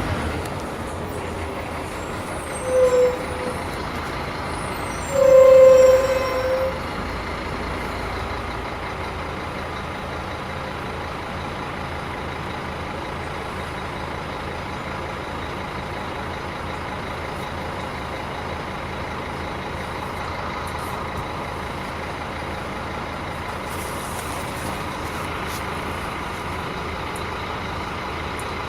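Scania K310 bus running steadily. Two electronic beeps sound over it, a short one about three seconds in and a longer, louder one a couple of seconds later.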